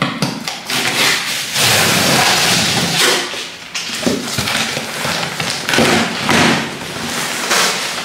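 A cardboard shipping box being handled and opened by hand: packing tape pulled and torn off, with the cardboard scraping and rustling in repeated noisy strokes and a few knocks as the box is moved.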